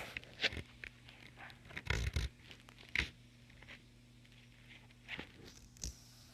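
Leopard gecko crunching on insect prey: a handful of short, faint crunches and clicks spaced a second or so apart, with quiet between them.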